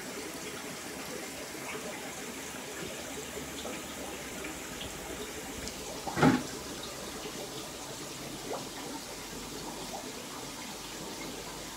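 Coarse air bubbles from the tank's aeration bubbling and churning the water surface steadily, with one brief louder splash about halfway through.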